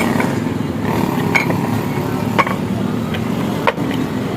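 Electric exhaust fan motor running with a steady hum, with a few sharp taps or clicks about a second apart.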